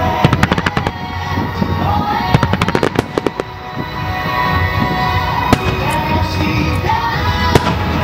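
Fireworks going off in rapid volleys of bangs and crackles for the first three seconds or so, thinning to a few scattered pops, over music that plays along with the display.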